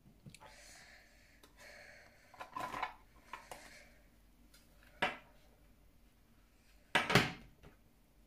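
Small metal tin case and the stack of cards inside it being handled: soft sliding and scraping, then scattered knocks and taps against the tin. The loudest is a double knock about seven seconds in.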